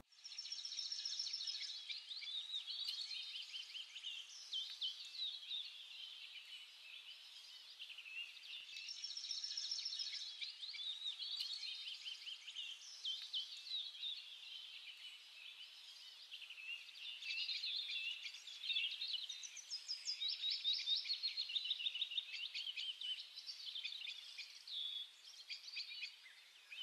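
Songbirds singing: a continuous, quiet stream of quick high chirps and trills, with no low sounds beneath.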